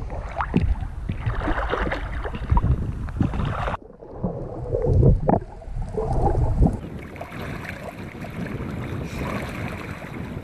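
Sea water splashing and churning around swimmers kicking at the surface, heard from a camera at and under the water, with a sudden cut a little under four seconds in. In the last few seconds the splashing gives way to steadier wind and water noise.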